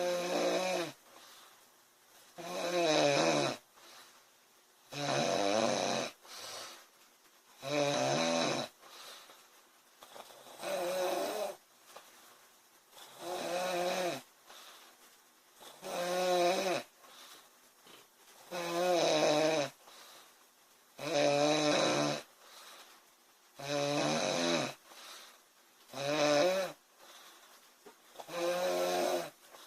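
A sleeping woman snoring in a steady rhythm: about a dozen pitched snores, each roughly a second long, one every two and a half seconds.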